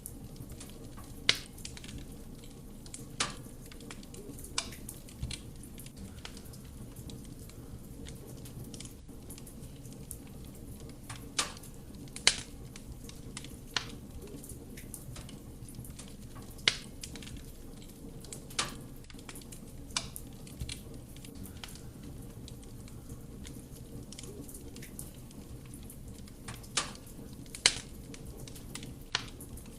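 Wood fire burning in a fireplace: a steady low rumble of flame with sharp crackles and pops from the burning wood, about a dozen at irregular intervals.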